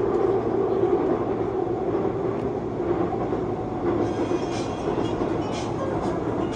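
Seoul Subway Line 2 train running steadily on elevated track, a continuous rumble heard from inside the front car. From about four seconds in, a few short high ticks come about once a second over the rumble.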